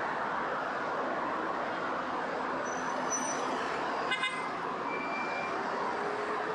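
Steady city street traffic noise, with a brief toot about four seconds in.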